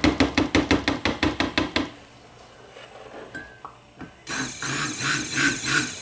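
Soap batter being hand-stirred in a plastic pitcher: a utensil clicks fast and evenly against the sides, about six times a second, and stops about two seconds in. From about four seconds in there is a louder rustling scrape with a regular pulse.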